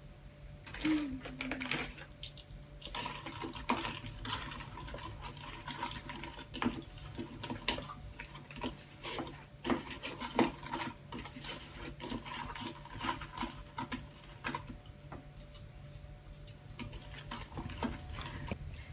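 Hot water running from an electric airpot into a bowl, followed by light clinks and knocks of kitchenware, over a low steady hum.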